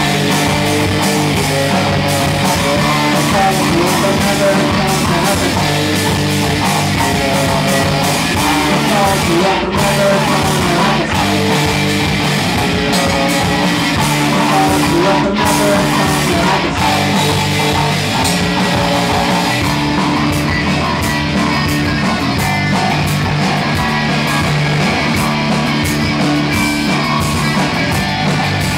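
A rock band playing live and loud: electric guitar over bass and drums, with the music running on without a break.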